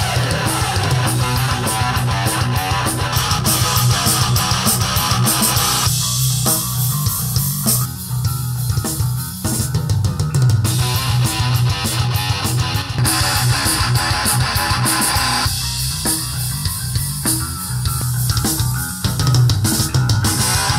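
Rock music with guitar, bass guitar and drums playing through a pair of floorstanding hi-fi loudspeakers in a room. The speaker pair changes partway through for an A/B listening comparison.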